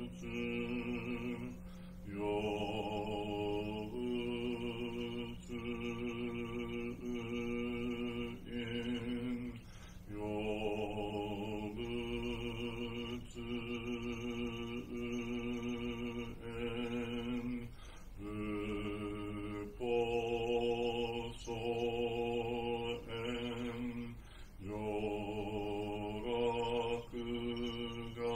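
A man chanting a Japanese Zen Buddhist sutra solo, holding each drawn-out syllable on a near-level pitch, with short pauses for breath.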